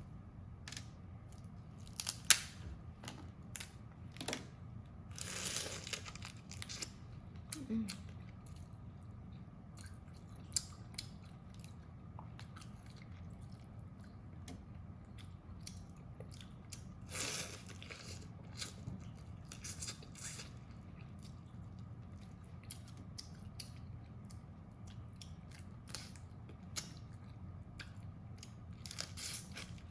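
A person eating close to the microphone: chewing, with scattered sharp crunches and clicks and a few longer crunching passages, over a steady low hum.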